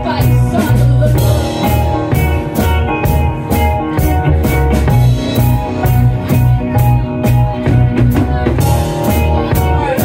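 Live band playing an instrumental passage: a drum kit keeps a steady beat under a strong bass line, with electric keyboard and an electric stringed instrument.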